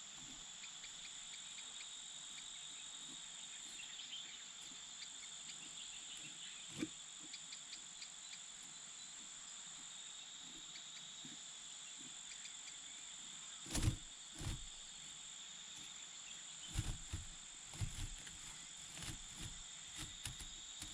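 Crickets or other insects chirring steadily in a high, even drone, with a few short soft thumps and knocks, the loudest a pair about two-thirds of the way through and a cluster near the end.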